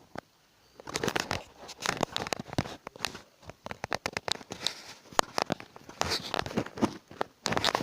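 Close handling noise: irregular crinkling, rustling and small clicks, like paper or plastic being crumpled or torn, starting about a second in.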